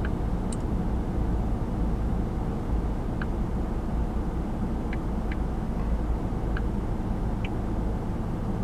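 Steady low drone inside a car's cabin, with a few faint light clicks scattered through it.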